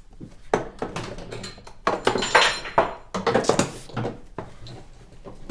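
Metal clanking and knocking: a series of sharp hits in two clusters, some with a brief metallic ring, the sound of hand tools and metal parts striking one another.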